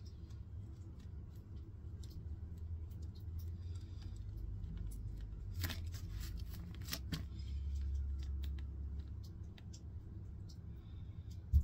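Close-up handling sounds: faint scuffing and scattered light clicks over a low steady hum, with a single sharp knock near the end.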